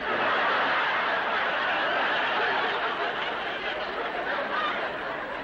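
Studio audience laughing in response to a joke, starting abruptly and slowly dying away.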